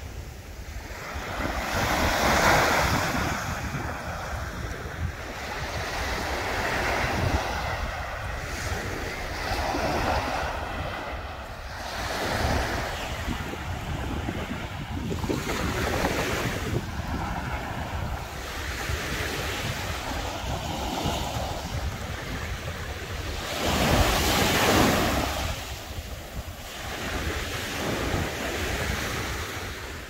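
Baltic Sea waves washing onto the beach in repeated surges every few seconds, one of them louder late on, with wind rumbling on the microphone.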